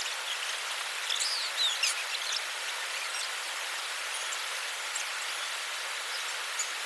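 Steady hiss of water, with a few short bird chirps in the first two or three seconds.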